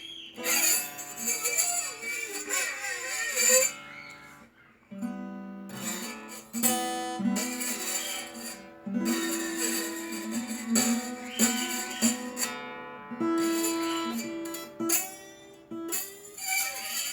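Acoustic guitar being played: plucked and strummed notes, with wavering, sliding pitches in the first few seconds and held notes after that.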